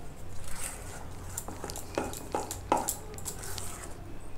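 Steel spoon stirring thick besan batter in a stainless steel bowl, with a few irregular clicks and scrapes as the spoon hits the side of the bowl.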